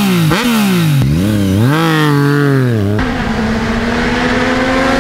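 Yamaha MT-09's three-cylinder engine through an Akrapovic full exhaust, revved in quick throttle blips that rise and fall sharply. About three seconds in it gives way to a steadier, slowly climbing engine note with a rush of wind noise.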